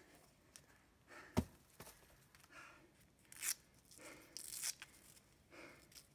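Faint scattered rustling and scuffing in a few short bursts, with one sharp click about a second and a half in.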